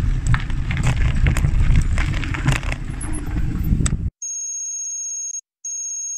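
Wind rumble and tyre noise from a bike rolling along a gravel track, cut off abruptly about four seconds in. Then an electronic trilling ring, like a telephone bell, sounds twice: about a second, a short gap, then again.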